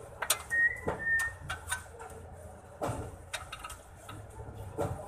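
Scattered metal clinks and knocks from tools and suspension parts being handled while the upper control arm is fitted, with two short high chirps in the first second or so.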